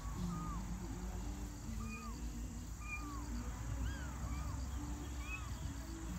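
Tiny kittens, about 20 days old, mewing: thin, high, short cries, each rising and falling, repeated every half second to a second.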